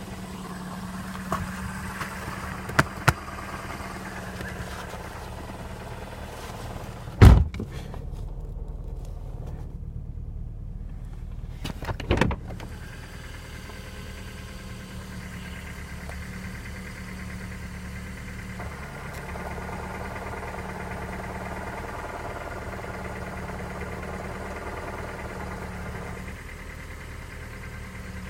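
Car engine idling with a steady knocking from the gearbox, which the owner suspects is a worn gearbox input shaft bearing. Two loud thumps come about five seconds apart, and between them the higher part of the noise drops away.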